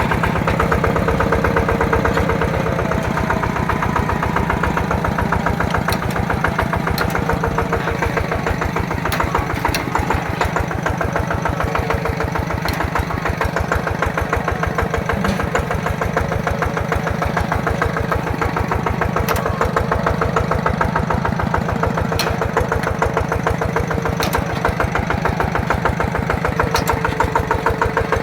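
Yanmar single-cylinder horizontal diesel engine of a two-wheel walking tractor running steadily, with rapid, even firing pulses.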